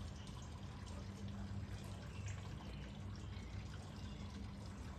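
Faint light clicks and small metal handling sounds over a steady low hum, as parts and tools are handled while a small engine's carburetor and governor linkage are taken off.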